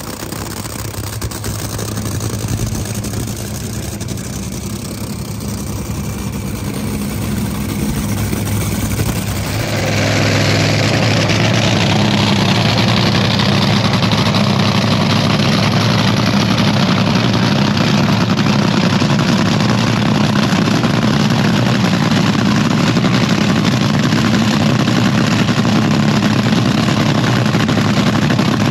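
Top Fuel dragster's supercharged, nitromethane-burning V8 running steadily at idle. About ten seconds in, it becomes suddenly louder and fuller.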